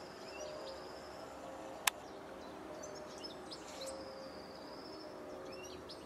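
Small songbirds singing: a rapid high trill near the start and another from about four seconds in, with short chirps between. A single sharp click about two seconds in.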